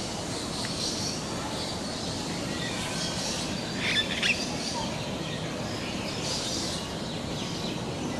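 Scattered short, high chirps of birds over a steady background hiss, with two brief louder sounds close together about halfway through.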